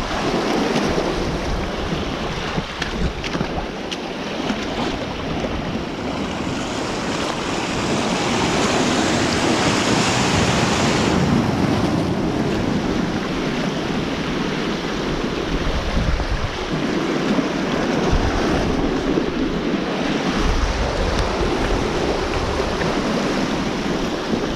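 Sea water surging and foaming over and between reef rocks in a strong running tide: a continuous rushing wash that grows louder and hissier about six to eleven seconds in. Wind buffets the microphone underneath.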